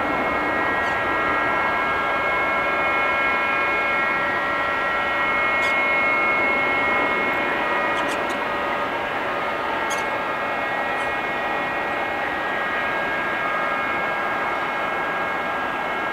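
EVA Air Cargo Boeing 777F with its twin GE90 turbofans at takeoff power, heard from a distance through the takeoff roll and lift-off. A steady jet rumble carries a high, even whine of several fan tones.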